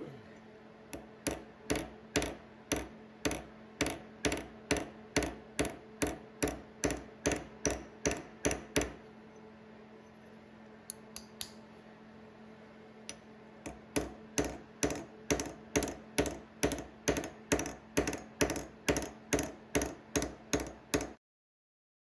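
Hand file stroking across the cast-iron seat and brass insert of a Stanley 101 plane body clamped in a vise, at about two even strokes a second, each swelling and then stopping. The strokes come in two runs, with a few light taps in the pause between them, and cut off suddenly near the end.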